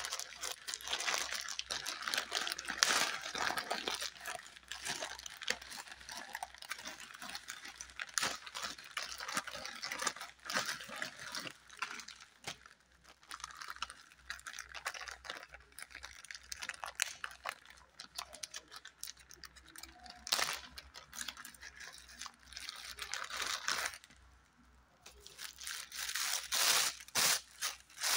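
Plastic packaging bags and a cloth pouch rustling and crinkling in irregular spells as they are handled and unwrapped. There is a brief lull shortly before the end, then louder crinkling of the plastic bag.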